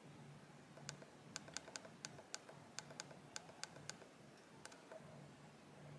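Repeated faint clicks of a thumb pressing a button on a Ulanzi VL49 RGB pocket LED light, about three presses a second, stepping its colour temperature down. The clicks stop near the end.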